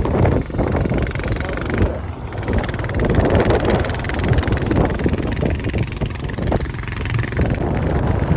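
Motorcycle engine running as the bike rides along, with a steady rushing noise over it.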